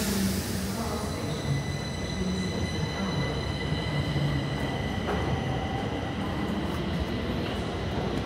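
Stockholm metro train at the platform giving a high squeal of several steady tones that fades away over about seven seconds, over a steady low rumble. A short hiss comes at the very start.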